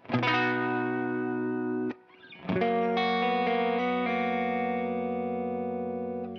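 Electric guitar played through an Ibanez CP10 Compression Sustainer pedal, with a slightly hairy tone. One chord is struck and held for about two seconds, then cut off; a second chord is struck and left to ring with long, even sustain.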